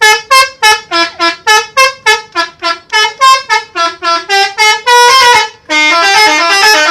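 Bus 'telolet' multi-tone air horn playing a tune: quick short toots, about three to four a second, stepping up and down in pitch, then a longer held note about five seconds in, followed by a run of notes that carry on without breaks.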